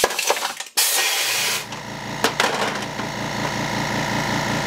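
Pneumatic can crusher firing: a sharp hiss of air with a knock as the button is pressed. About a second in, an air compressor kicks on and runs steadily with a fast, even pulse.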